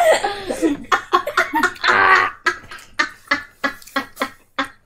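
Children giggling and laughing, over a run of sharp crunches as hard baked cheddar cheese crisps are bitten and chewed.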